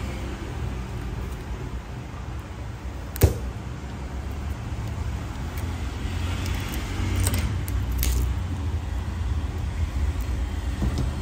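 Steady low background rumble with one sharp click about three seconds in. Between about six and eight seconds in there is a short hiss with a few crackles, as the phone battery's adhesive pull tab is stretched and the battery peels free of the frame.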